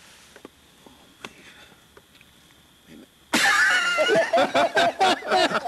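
A few seconds of near-quiet with a faint, steady high whine. Then, about three seconds in, a man suddenly bursts into loud laughter in quick, choppy bursts.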